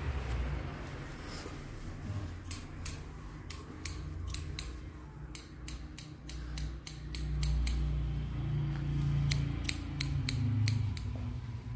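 Barber's scissors snipping beard hair, a long run of crisp snips at about three a second that starts a couple of seconds in, over a low steady hum.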